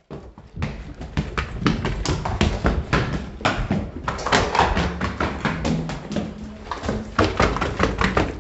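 Hurried footsteps and knocks, a fast series of thumps about four or five a second, as someone runs over a hard floor with a handheld camera jostling against things.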